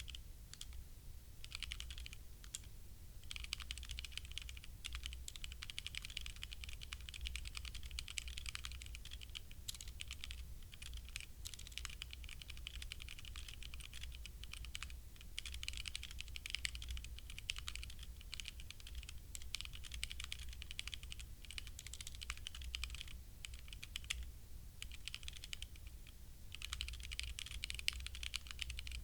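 Fast, continuous typing on a HyperX Alloy Origins Core mechanical keyboard with linear HyperX Red switches: a dense run of key clicks with a few short pauses. A steady low hum sits underneath.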